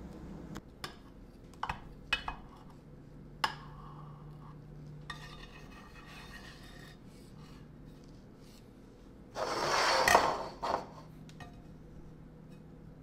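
Ceramic serving dish and tableware handled on a wooden tabletop: several light clicks and taps in the first few seconds, then a louder scrape lasting about a second, followed by one more tap.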